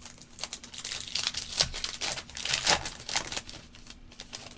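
Trading-card pack wrapper being torn open and crinkled by hand, a run of quick rips and crinkles that stops near the end.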